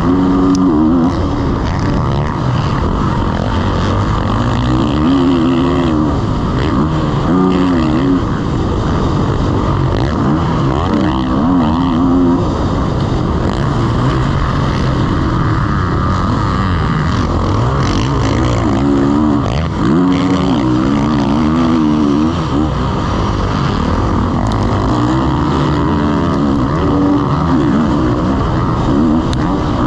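Motocross dirt bike's engine, ridden hard on the track: revs climbing and dropping back over and over as the rider accelerates, shifts and brakes.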